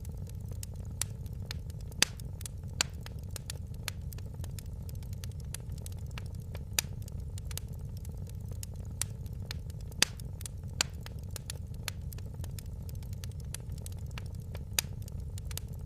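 Fire crackling in a fireplace: irregular sharp pops and snaps, a louder one about two seconds in and another about ten seconds in, over a steady low rumble.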